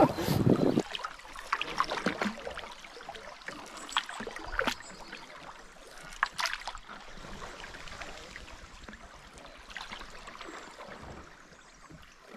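River water rippling and trickling along the hull of a drifting canoe on a fast-flowing stretch, with a few short splashes and drips. A brief louder rumble comes right at the start.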